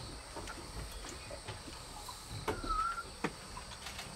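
Forest ambience: a steady high insect drone, with a short whistled bird note about two and a half seconds in and a few faint clicks.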